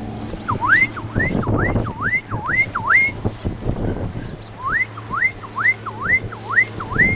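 Electronic recall whistle held in the mouth, sounding two runs of six quick calls, each dipping and then sweeping up in pitch, about two a second with a short gap between the runs. It is the call that signals the mink to come back.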